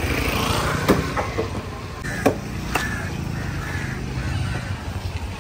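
A vehicle engine idling steadily, with three sharp knocks, one about a second in and two close together near the middle.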